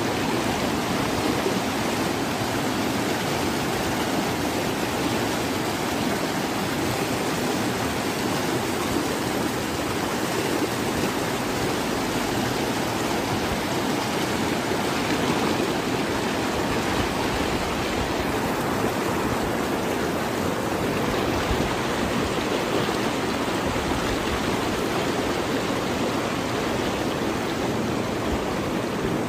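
Muddy floodwater and debris flow rushing steadily, a continuous deep, even rushing noise.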